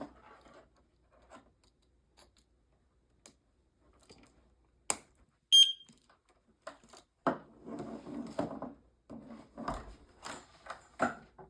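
A sharp click, then a single short, high-pitched beep from a hardwired smoke detector as its battery-backup wall unit is plugged in. Rustling and knocks from handling fill the last few seconds.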